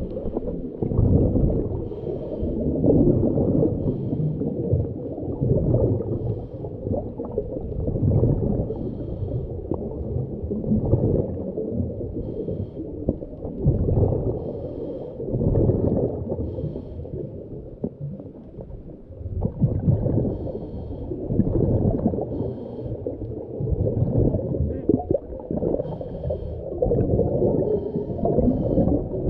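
Muffled underwater sound of a diver's breathing and exhaled bubbles, rumbling in repeated surges every two to three seconds, with faint short hisses between them.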